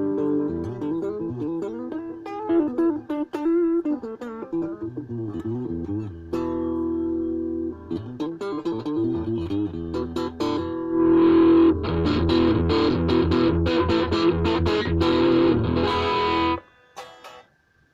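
Ibanez RG350DX electric guitar played through a VOX Soundbox Mini amp: picked single-note phrases and a held chord, then fast rhythmic chords that stop suddenly near the end.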